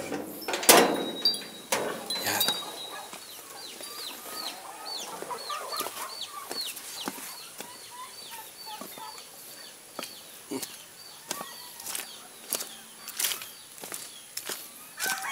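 Chickens clucking in a farmyard, with a run of short, high, falling chirps repeating about three times a second for most of the first nine seconds, over scattered sharp clicks.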